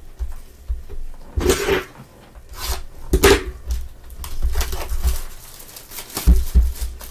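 A cardboard Donruss trading-card retail box and the card packs inside it being handled: rustling and scraping with soft knocks, loudest twice, about a second and a half and three seconds in.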